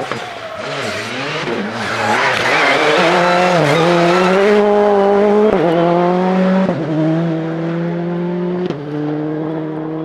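Rally car engine under hard acceleration: the revs rise and fall for the first few seconds, then climb strongly, with three quick upshifts in the second half.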